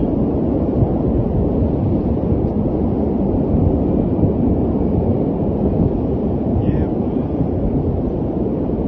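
Steady low rumble of a large fire burning at a distant rocket-engine plant after an explosion, continuous without a single distinct blast.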